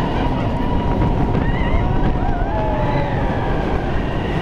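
Mine-train roller coaster running at speed: a loud rumble of the cars on the track with wind rush on the microphone, and high wavering squeals gliding up and down over it.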